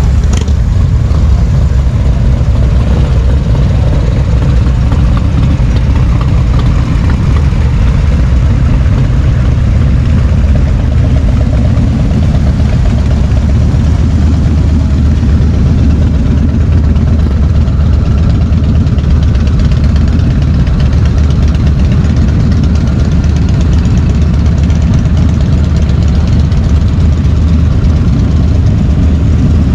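Motorcycle engines idling and running together, a loud, steady low-pitched sound with no clear pauses.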